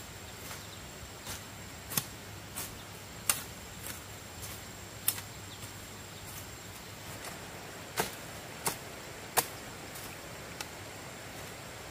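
A series of sharp clicks or knocks at uneven intervals, roughly one or two a second, some much louder than others, over a faint steady hiss with a thin high tone.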